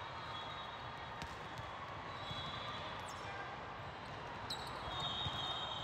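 Din of a large sports hall with many volleyball courts in play: a steady murmur from the crowd and other courts, scattered sharp thuds of volleyballs being hit and bouncing on hardwood, and a few brief high-pitched tones.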